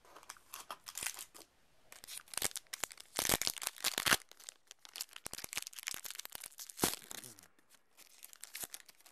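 Foil wrapper of a Yu-Gi-Oh! booster pack being torn open and crinkled: an irregular run of crackling rips, loudest about three to four seconds in, with a sharp crack near seven seconds.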